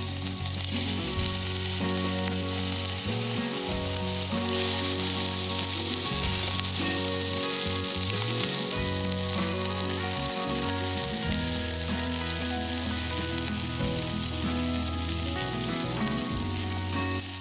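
Spice-rubbed chicken drumsticks sizzling steadily as they brown in hot oil in an Instant Pot's stainless inner pot on the sauté setting, under background instrumental music.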